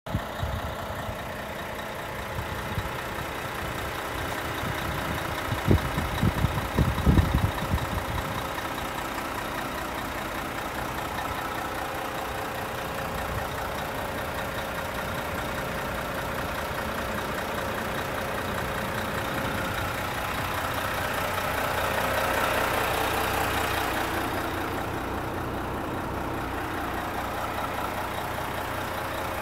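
Renault T460 truck's 460 hp Euro 6 diesel engine idling steadily, swelling a little about two-thirds through. A few low thumps come about a quarter of the way in.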